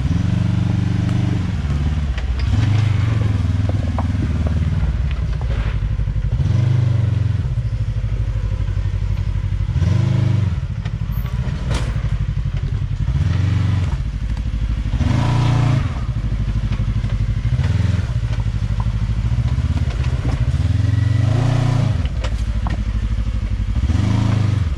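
Side-by-side UTV engine revving up and dropping back again and again, about seven times, as the machine crawls over rocks. Knocks and clatter from the vehicle bumping over the rocks come in between.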